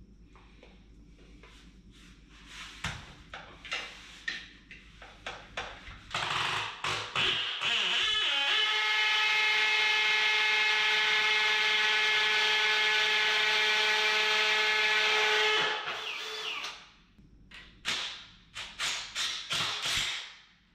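Cordless drill running at a steady pitch for about eight seconds while working on a toilet flange. Before and after it come scattered clicks and knocks of tools and parts being handled.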